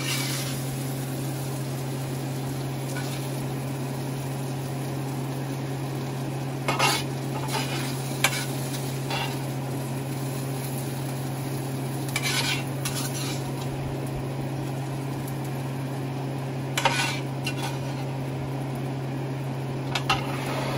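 Metal spatula scraping and clinking against a skillet in short strokes every few seconds, over steady sizzling from the pan and a constant low hum.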